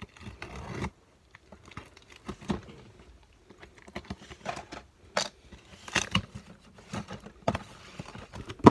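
Snap-off utility knife slicing through packing tape on a corrugated cardboard case, in short irregular scraping and tearing strokes with scattered clicks. A sharp crack near the end.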